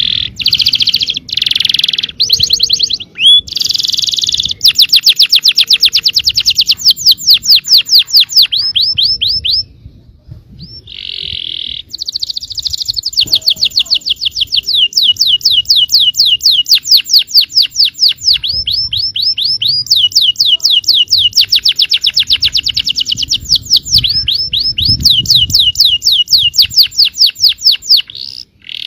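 Yellow canary singing long, fast rolling trills of rapidly repeated sweeping notes, broken by short pauses and a brief gap about ten seconds in.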